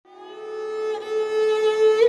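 Music fading in: a sustained, held melody on a bowed string instrument such as a violin, in an Indian classical style.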